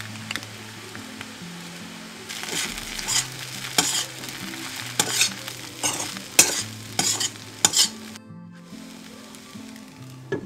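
A metal spatula stirs and tosses poha in a hot pan with a light sizzle. About two seconds in comes a run of about ten scraping strokes against the pan, ending around eight seconds, and near the end a glass lid clinks onto the pan.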